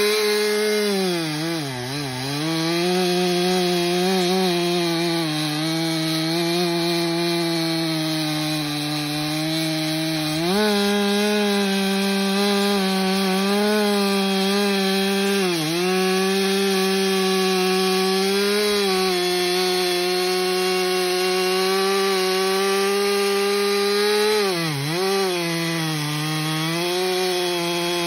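Stihl MS 400 C chainsaw's 67 cc two-stroke engine running at high revs while cutting through a large log. Its pitch sags briefly three times as the chain bites harder, about two seconds in, midway and near the end, then picks back up each time.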